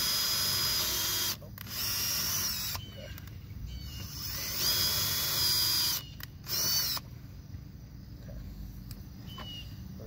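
Cordless drill running a 1/8-inch bit into the sheet-metal edge of a truck door, drilling pilot holes for self-tapping screws. It whines in four runs, stopping and starting, with the pitch rising as it speeds up, then stops about seven seconds in.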